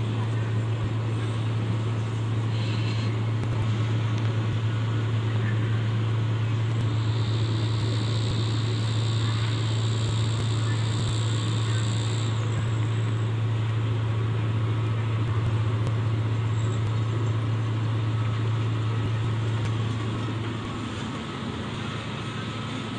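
Truck-mounted crane's diesel engine running steadily under load while it lifts a heavy tracked rig, a constant low hum that eases a little about three seconds before the end. A high thin whine joins for several seconds in the middle.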